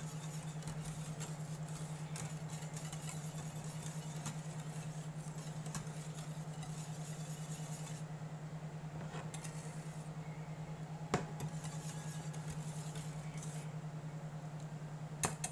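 Steady low hum with a fast regular pulse from an electric glass cooktop, under the soft scraping and tapping of a wire whisk stirring thick white sauce in a stainless steel saucepan. There is a sharper clink of the whisk on the pan about eleven seconds in and another near the end.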